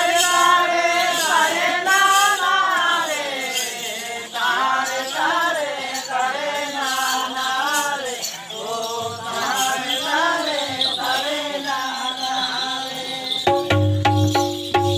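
A group of men singing a Karam dance song together without accompaniment, in rising and falling phrases. Near the end a drum comes in with quick, repeated beats.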